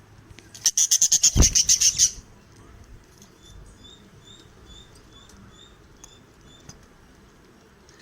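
Pet budgerigars chirping: a loud, rapid burst of high chirps, about ten a second, lasting about a second and a half, with a soft thump in the middle. It is followed by faint, evenly spaced high peeps about twice a second.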